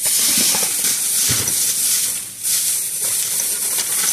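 Plastic shopping bag rustling and crinkling as items are rummaged out of it, a loud hissy crackle that comes and goes with the hand movements.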